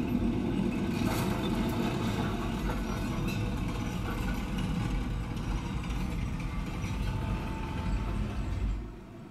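Film soundtrack of a vehicle engine rumbling steadily, played through speakers and picked up by a smartphone microphone. The rumble drops away suddenly near the end.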